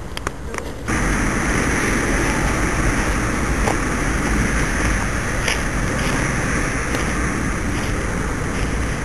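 Steady wind noise buffeting the microphone, with a low rumble. It starts abruptly about a second in, and a few faint clicks sound over it.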